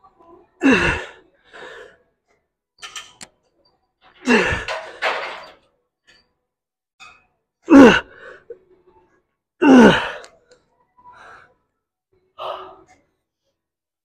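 A man's forceful breaths, four loud voiced exhalations a couple of seconds or more apart, each falling in pitch, with quieter short breaths between them: effort breathing through the reps of a weight-lifting set.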